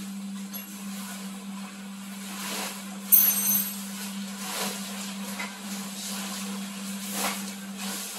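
Airblown inflatable's blower fan running with a steady hum while the nylon inflatable fills, its fabric rustling as it is handled. A sudden sharp sound about three seconds in.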